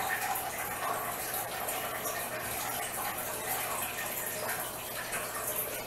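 Steady rushing, water-like noise with a faint low hum underneath.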